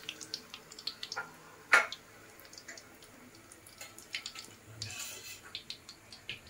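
Hot oil in a wok crackling as food deep-fries, with scattered sharp pops and spits and one louder pop about two seconds in.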